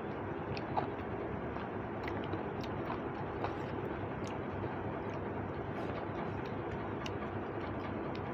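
Eating by hand from a plate: small scattered clicks and smacks of fingers working food on the plate and of chewing, over a steady background noise.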